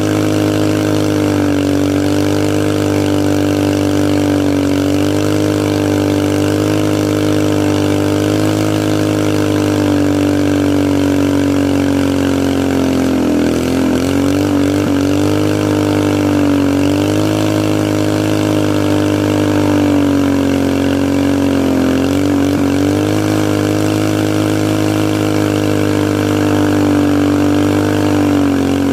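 Doodlebug mini bike's modified 212cc Predator single-cylinder engine, governor removed and fitted with a header, held at high revs through a stationary burnout. The engine note stays steady with a slight waver, and the revs sag briefly twice, about halfway through and again later.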